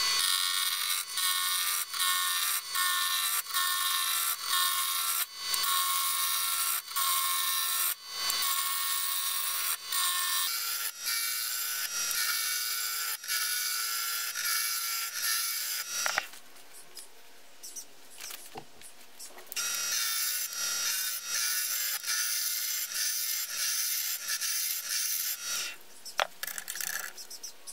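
Roughing gouge cutting a glued-up ash and hardwood blank spinning on a wood lathe at about 1500 rpm: a steady, dense shaving noise from the tool biting the wood. The cut drops away for a few seconds about two-thirds through and stops near the end.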